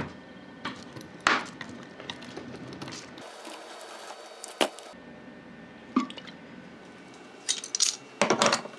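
Scattered metallic clicks and knocks from an old steel drill chuck and vises being handled, with a quick run of metal clatter near the end.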